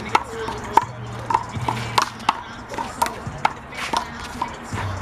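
A one-wall handball rally: the big blue rubber ball smacked by hands and slapping off the wall and ground, a quick irregular string of sharp smacks, two or three a second.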